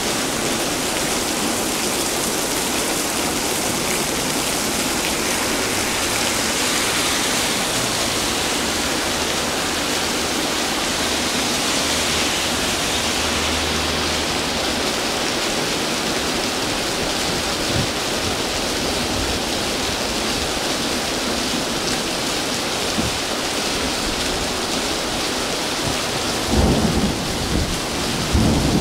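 Unusually heavy rain pouring down steadily, a dense, even hiss. A few low thumps come near the end.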